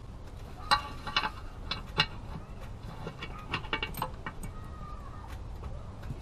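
Metal valve cover bolts and isolators clinking and clicking against a Cummins 5.9L valve cover as they are set in place and started by hand. A few sharp clinks come in the first two seconds, then a quick cluster of clicks a little past the middle.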